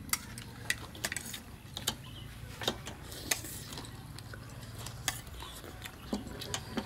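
Chopsticks and metal spoons clicking and clinking against ceramic plates and bowls as several people eat: irregular light clicks over a low steady hum.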